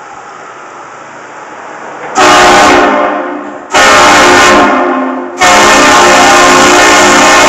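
Car-mounted air train horns blasting a very loud multi-note chord. Two blasts of about a second and a half each start about two seconds in, followed by a third, longer blast. Before them there is only a low steady vehicle hum.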